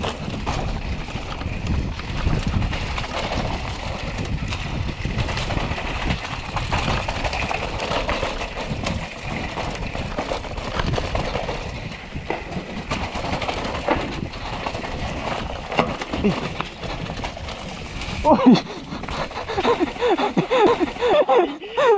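Mountain bike running fast down a rough dirt singletrack: steady tyre and wind noise with many small knocks and rattles from the bike over the bumps. Near the end, voices call out.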